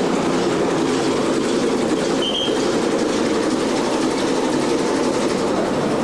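Fishing boat's engine running with a steady, loud drone, and a short high squeak about two seconds in.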